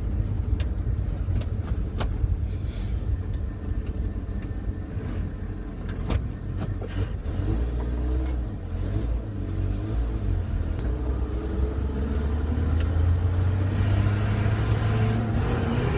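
Chevrolet C10 pickup's engine running while the truck is driven, pulling harder over the last few seconds. A few sharp clunks come in the first half.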